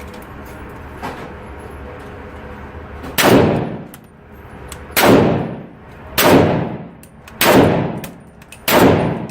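StG44 assault rifle, firing 7.92×33mm Kurz, shot five times in slow, deliberate single shots about one to two seconds apart, starting about three seconds in. Each shot is followed by a short echoing tail.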